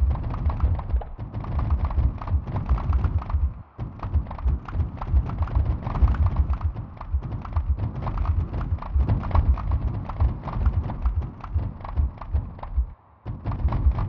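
Sonified seismic recordings of the 2022 Reykjanes Peninsula earthquake swarm: a dense, fast stream of short deep thuds and clicks. Each one is a sample of an earthquake waveform set off by one recorded tremor, with its pitch set by the quake's depth and its loudness and length set by its magnitude. The stream thins out briefly near four seconds in and again near the end.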